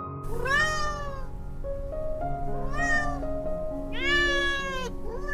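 Cat meowing three times, each call rising then falling in pitch, with a fourth starting at the very end, over soft background music.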